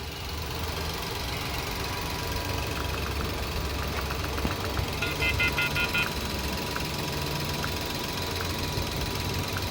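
Nissan Micra petrol engine idling steadily with its new spark plugs and reset throttle, running without a misfire. About five seconds in, a rapid run of short high electronic beeps lasts about a second.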